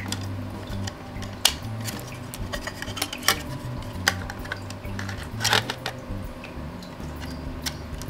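Kingston SSD being pushed onto its SATA connector by hand: a few sharp clicks and taps of the drive's casing and the plastic connector, a couple of seconds apart, with light handling noise between them.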